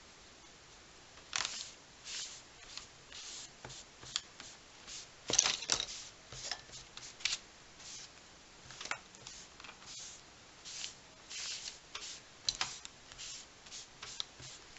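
Damp baby wipe rubbed in short strokes over thin Tomoe River journal paper, spreading Inktense pencil colour into a wash. The rubbing starts about a second in and keeps going as a run of irregular swishes, the loudest about midway.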